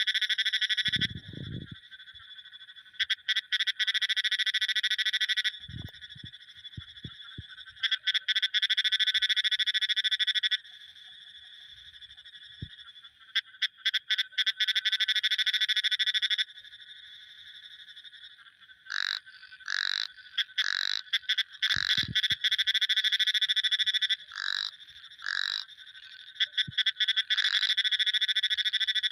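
Frogs calling: rapid pulsed trills in bouts of two to three seconds with short pauses between, then a run of shorter separate calls, then another trill near the end.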